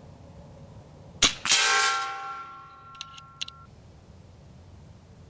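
A PCP air rifle fires once, and a split second later the pellet strikes a steel target, which rings with several clear tones fading over about two seconds. A few light clicks follow about a second later.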